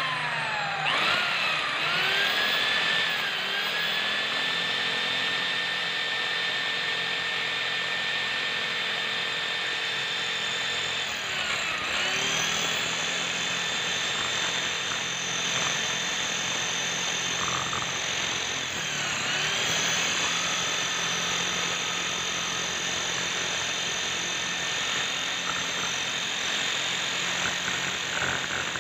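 Electric hand drill running under load as its bit bores into steel angle bar, a steady high motor whine. The whine spins up at the start and twice sags and recovers as the bit bites into the metal.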